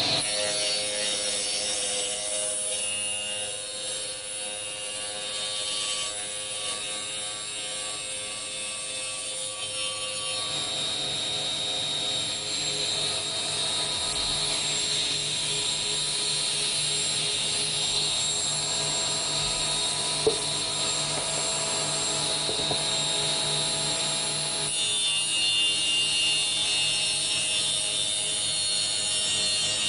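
A spindle moulder fitted with a saw blade runs steadily while sawing through the sides of a wooden box to cut its lid off. The whine of the blade changes in tone about a third of the way in and again near the end as the cut goes on, with one sharp tick about two-thirds through.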